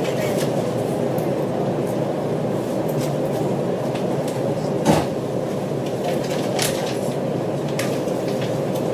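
Steady low rumble heard from inside a railway carriage, with a single sharp knock about five seconds in.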